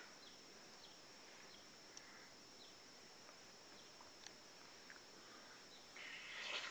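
Near silence with faint hiss and a few soft ticks, then near the end a brief rustle of fabric as a pillow swats down onto bedding.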